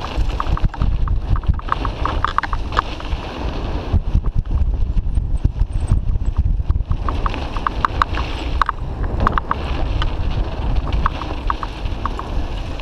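Wind rushing over an action camera's microphone during a fast mountain-bike descent on a dirt trail. Tyres rumble over the dirt, with clusters of short rattles and clicks from the bikes.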